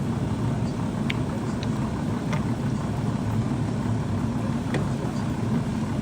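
Pot of chicken macaroni soup boiling on the stove: a steady low rumble with a few faint pops.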